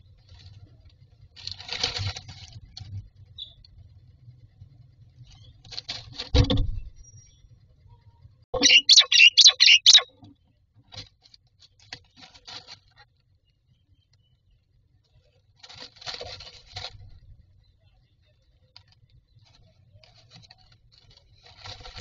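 Common myna moving about inside a nest box, rustling and scratching the dry grass nest material in several short bursts. A little before the middle comes a loud, rapid run of about seven harsh pulses.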